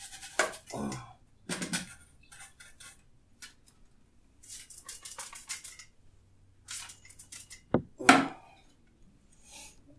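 Brush and paint being worked on a canvas and a clear palette: irregular short scratchy strokes and scrapes, with a sharper knock or clink about eight seconds in.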